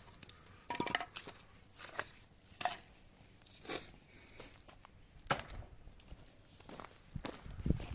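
Firewood and kindling cracking and snapping irregularly while a small wood fire is being lit, with a sharp crack roughly every second.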